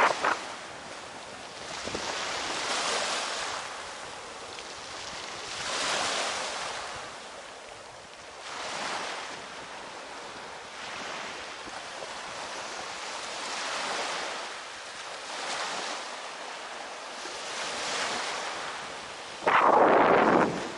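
Sea waves breaking and washing up the shore, swelling and fading every two to three seconds under a steady wind. Near the end a gust buffets the microphone.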